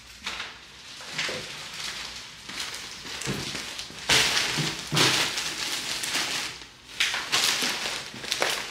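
Thin plastic grocery bags rustling and crinkling as they are carried and set down on a table, loudest in the second half.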